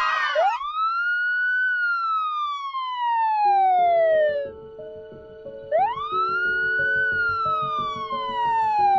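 Police siren sound effect wailing twice; each wail climbs quickly, then slowly falls away over about three seconds. Soft background music comes in under it partway through.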